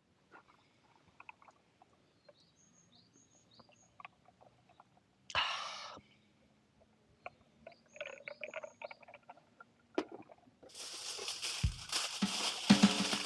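Small birds chirping in short, high, falling calls, in two spells, over quiet outdoor ambience. A brief rushing noise comes about five seconds in, and near the end a loud steady hiss sets in.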